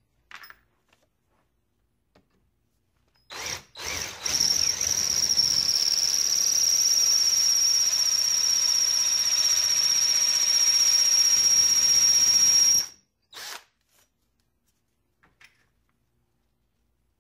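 Electric drill with a 1/4-inch bit cutting a shallow recess into an aluminum plate, so that an Allen bolt head will sit countersunk. It gives two short blips a few seconds in, then runs steadily for about eight seconds with a high whine, and stops sharply.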